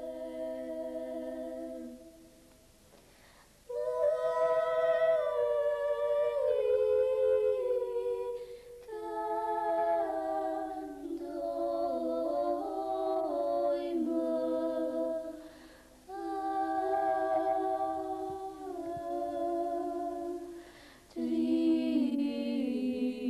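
Slow unaccompanied church chant: voices holding long notes that step slowly up and down, sung in phrases with short breaks between them.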